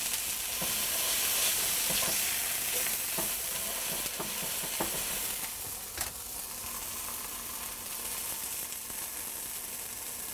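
Hamburger patty frying in a nonstick skillet, a steady sizzle that slowly grows quieter, with a few light clicks about three, five and six seconds in.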